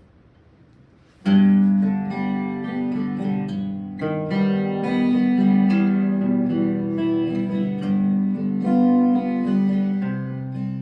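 Guitar playing the instrumental intro of a song, plucked notes and chords that start suddenly about a second in and ring on.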